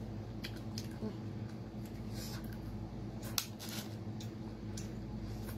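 Eating small sea snails: sharp sucking pops and clicks as the meat is slurped straight from the shells and the shells are handled, with no toothpick used. A steady low hum runs underneath.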